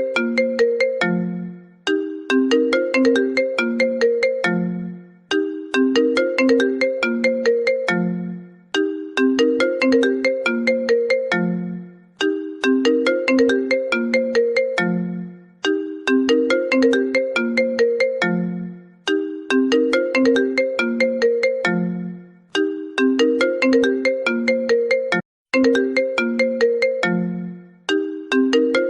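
A phone ringtone looping: a short melody of quick struck notes, each pass ending on a held low note. It repeats about every three and a half seconds.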